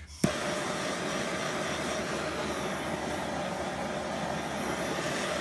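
Handheld gas torch hissing steadily as its blue flame heats a seized nut on an old cast-iron brake master cylinder held in a vise. It starts with a sharp click and cuts off suddenly at the end.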